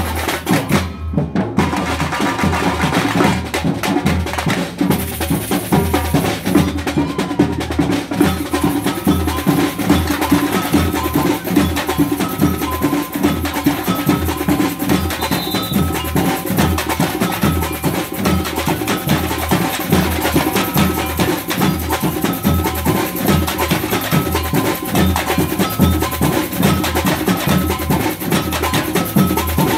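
Brazilian samba batucada percussion ensemble playing a steady groove. Large metal surdo bass drums beat an even low pulse under smaller hand-held drums and percussion.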